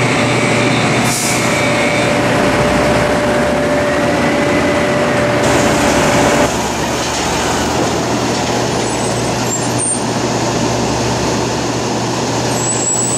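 Container crane and yard tractor machinery running steadily and loudly during container discharge, with a steady whine that cuts off about six and a half seconds in, after which the machinery noise continues with a changed character.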